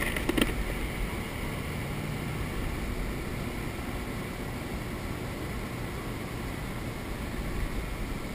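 Steady rushing wind noise on an action camera's microphone, with two faint clicks right at the start.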